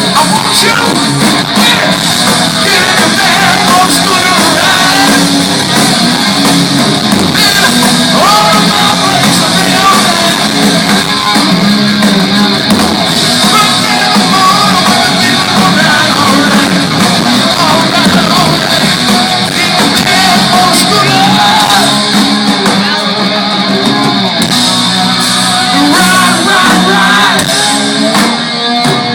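Rock band playing live: singing and shouted vocals over guitar and drums, loud and steady throughout.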